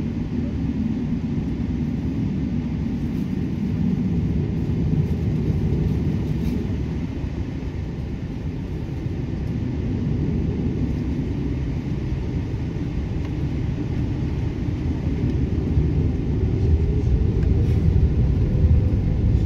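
Boeing 777-300ER's GE90 engines heard from inside the economy cabin while the airliner taxis onto the runway: a steady deep rumble. Near the end a tone rises and the noise grows louder as the engines spool up.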